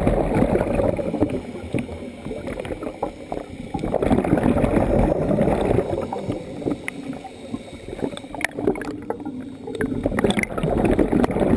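Muffled underwater bubbling and gurgling of scuba divers' exhaled air, swelling in surges every few seconds, with scattered small clicks.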